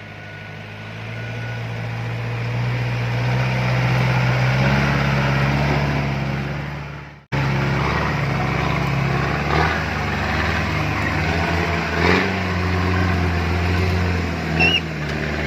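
Off-road 4x4's engine running and building under load over the first few seconds; the sound cuts off abruptly about seven seconds in and resumes at once with the engine running steadily, broken by a few brief knocks.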